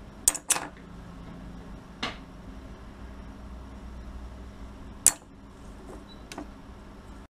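Hard-drive voice-coil magnets and steel pole plates being handled, giving several sharp metal clicks: two close together near the start, one about two seconds in, a loud one about five seconds in and a lighter one near six.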